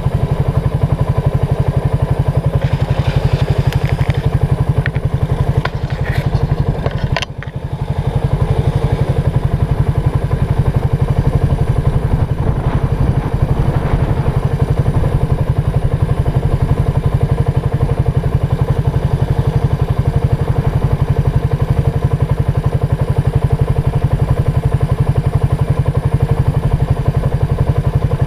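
ATV engine running steadily, its firing pulses dense and even throughout. A few light knocks and clatter come between about three and seven seconds in, and the sound dips briefly about seven seconds in.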